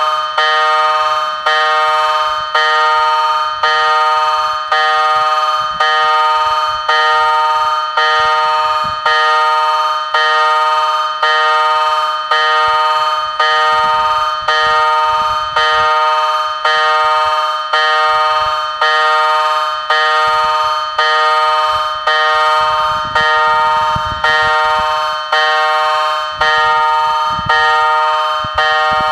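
Level crossing warning bell ringing: evenly repeated strokes about three every two seconds, each ringing out and fading before the next, signalling that a train is approaching.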